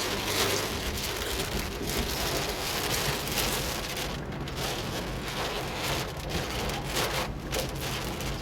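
Heavy rain hitting a moving car, heard from inside the cabin, over a low steady engine and road hum.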